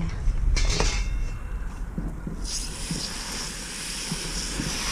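A garden hose spray nozzle turns on about halfway through, and a steady hiss of water sprays onto live crawfish in a plastic bucket. Before it there are a few soft knocks over a low rumble.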